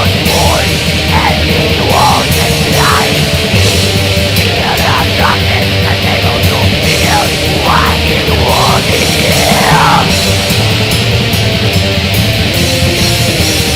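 Loud, dense heavy metal recording: distorted electric guitars over fast, cymbal-heavy drumming, with a wavering lead line in the middle of the mix.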